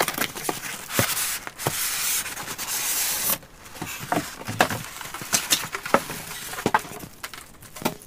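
Unboxing sounds: a cardboard box and its foam packing scraping and rustling, with the plastic bag around a ceiling fan crinkling as the fan is pulled out. A dense rustle about one to three seconds in, with scattered knocks and taps throughout.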